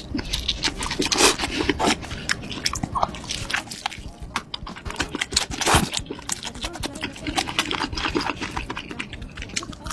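Close-up crunching bites and chewing of a fried, breaded cheese stick, a dense run of crisp crackles. The loudest crunches come about a second in and again near six seconds.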